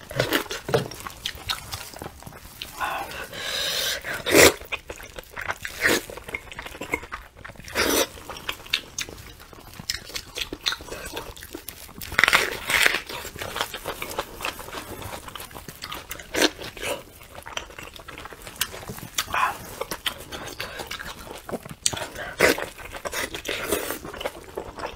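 Close-miked mukbang eating: biting, chewing and sucking braised lamb head meat off the bone, with wet smacking mouth noises and small crunches, and two longer, louder bursts about 3 and 12 seconds in.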